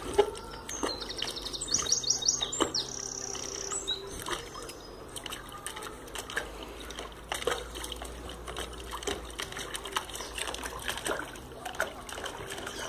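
A dog splashing in a shallow plastic tub of water, pawing and snapping at it: irregular splashes and dribbles of water.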